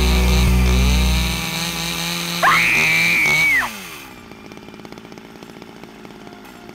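Chainsaw sound running with a steady drone, a high shrill tone cutting in for about a second near the middle; the saw then winds down in pitch and stops about four seconds in, leaving only a faint background.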